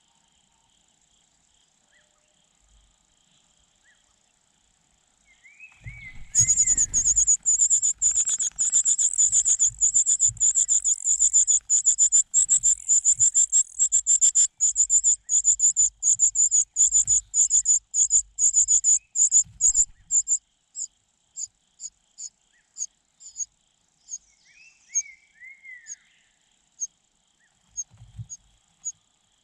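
Nestling birds begging: very rapid, high-pitched chirping starts suddenly about six seconds in and runs for some fourteen seconds, with soft low thumps of movement in the nest beneath it. It then thins out into separate chirps, and a few short downslurred calls come near the start of the chirping and again near the end.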